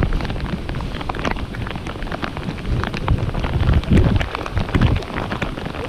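Heavy rain from a downpour, with drops striking close by in many sharp taps over a steady hiss. A low gusty rumble rises a few times around the middle.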